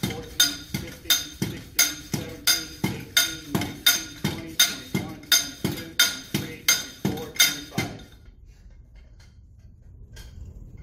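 5.5-pound sleeve-type soil compaction rammer (Proctor hammer) dropping 12 inches onto soil in a compaction mold: steady blows about two a second, each a sharp metallic strike with a short ring. The blows stop about eight seconds in, the end of a compacted lift.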